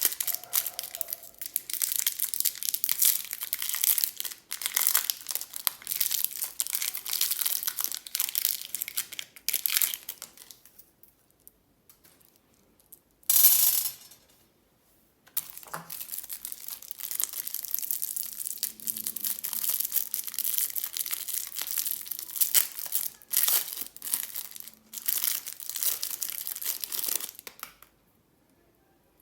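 Candy packaging being crinkled and torn open by hand, a close, dense crackling. It pauses for a few seconds, is broken by one short, louder burst, then the crinkling goes on again and stops near the end.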